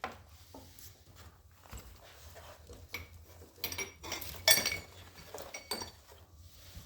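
Loose steel tool pieces being handled, clinking and clanking against each other: parts of a wheel bearing press kit. Irregular knocks, each with a short metallic ring, and the loudest clank comes about four and a half seconds in.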